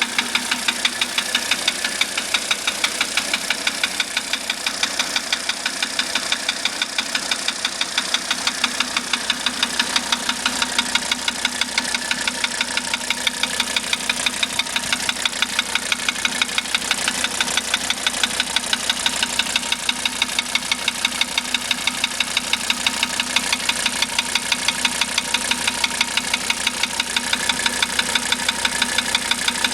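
1985 Mercedes-Benz 300D five-cylinder diesel engine idling with a sharp, regular knock several times a second. The cause is still unknown to the owner, even after the valves were adjusted and new glow plugs were fitted.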